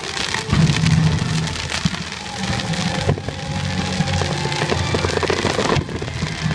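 Fireworks going off: dense crackling and pops from bursting shells over the show's soundtrack music.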